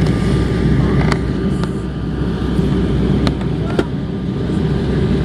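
Steady roar of engine and airflow noise heard inside the cabin of an Airbus A320 in flight, mostly deep rumble, with a few light clicks.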